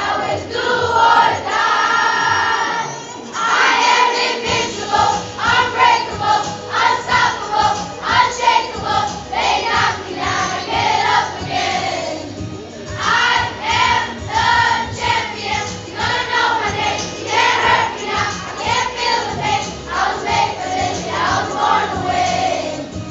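A group of children singing in unison along with a recorded pop song, with short pauses between phrases.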